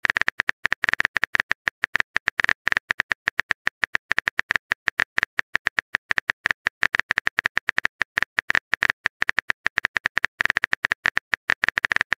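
Phone keyboard typing sound effect: a quick, uneven run of short clicks, several a second, one per character as a text message is typed.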